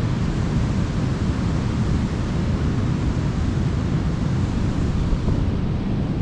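Ocean surf washing onto a beach: a steady rushing with a deep rumble underneath. The higher hiss eases slightly near the end.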